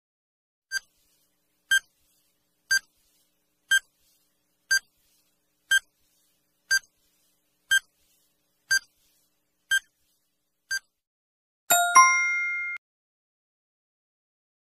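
Quiz countdown timer sound effect: eleven short high beeps, one a second, then a bright ringing chime of several tones lasting about a second, marking time up as the answer is revealed.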